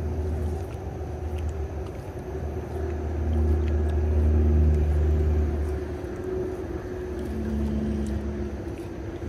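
A low rumble with a faint hum over it, swelling to its loudest around the middle and then easing off.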